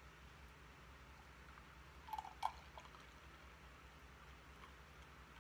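Very faint pour of thick homemade oat milk from a glass jug into a drinking glass, with two small clinks about two seconds in.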